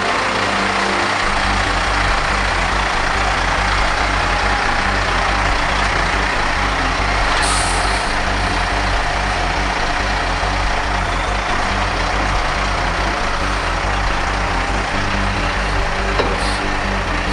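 Heavy-haul semi truck's diesel engine running steadily as it pulls a wind turbine tower section. About seven and a half seconds in there is a short hiss of air brakes, and a smaller one near the end.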